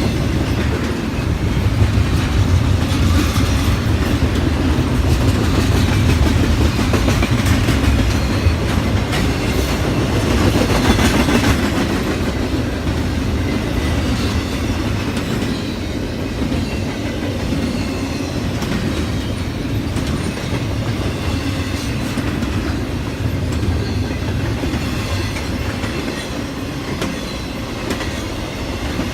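Intermodal freight train cars rolling past on a curve: a steady rumble of steel wheels on the rail with clickety-clack over the rail joints, and a faint wheel squeal near the end. It eases off slowly over the second half.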